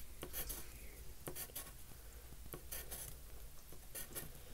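Pencil scratching faintly on paper in a run of short, quick strokes as small spikes are drawn.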